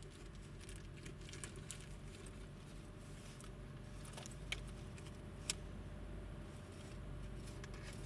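Faint steady low hum of a car engine idling, heard from inside the car, with a few small sharp clicks scattered through it, the sharpest about five and a half seconds in.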